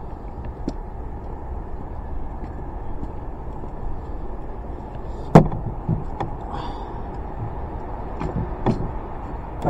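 Steady low rumble of a Honda PCX125 scooter on the move, broken by one sharp, loud knock about five and a half seconds in and a few smaller knocks after it.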